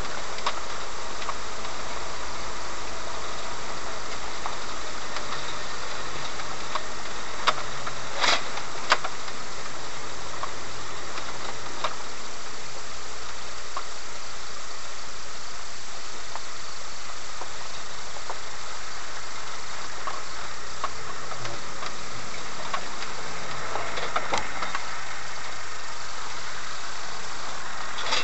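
Inside the cab of a 4x4 driving slowly along a rough off-road track: steady engine and road noise with rattles, and a few sharp knocks as it goes over bumps, most of them around eight seconds in and again near the end.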